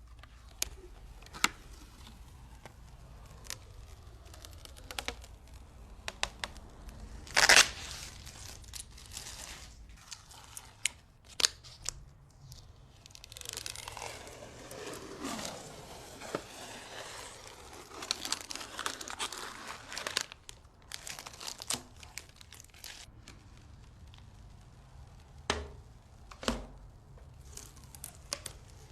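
Packaging being handled: plastic or paper crinkling and tearing, with scattered sharp clicks and knocks. The loudest is a short crackle about seven seconds in, and a longer stretch of rustling comes about halfway through.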